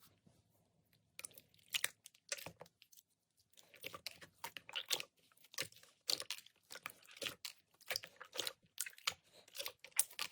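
Slime being pressed and squeezed by hand, making quick crackling, crunchy clicks. It starts about a second in, pauses briefly, then goes on steadily.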